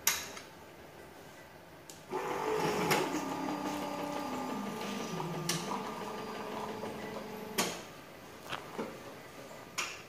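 Douwe Egberts liquid-coffee machine dispensing a short black: a click, then about two seconds in a pump hum starts, its tones stepping down in pitch, and cuts off suddenly after about six seconds. A few sharp button clicks follow near the end as the Short Black button is pressed for the second shot.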